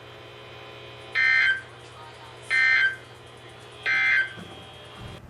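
Emergency Alert System end-of-message data tones from a weather radio receiver: three short bursts of two-tone digital warble, about 1.4 s apart. They signal the end of the broadcast alert. A faint steady hum runs underneath.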